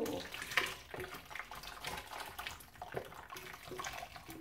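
Hot beef stew being tipped and scraped out of a wok into a slow cooker: wet sloshing and plopping, with uneven scrapes of a wooden spatula against the pan.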